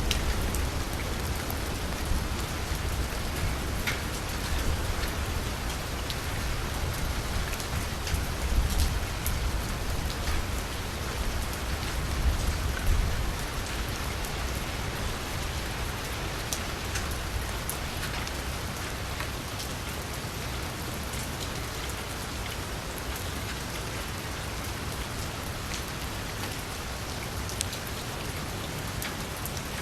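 Steady rain falling on a street, with individual drops ticking through it. A low rumble underneath is strongest in the first half and dies away.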